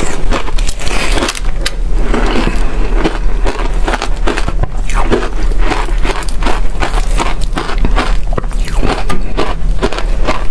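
Crunchy freezer frost crunching loudly in rapid, irregular crackles, with a steady low hum underneath.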